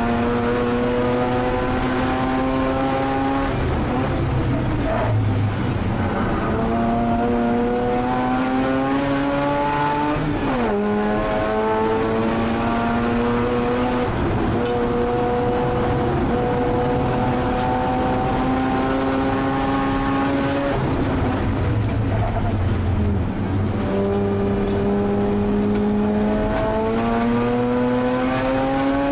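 Mazda RX-8 race car's twin-rotor Wankel rotary engine at full throttle, heard from inside the cockpit. Its pitch climbs steadily through each gear and drops sharply at the gear changes, with lower, rumbling stretches under braking and downshifts.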